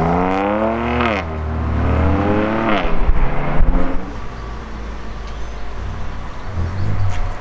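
BMW M2 CS prototype's S55 twin-turbo straight-six accelerating hard away, its note rising and dropping back at two upshifts about one and three seconds in. After that it gives way to a quieter steady background rumble.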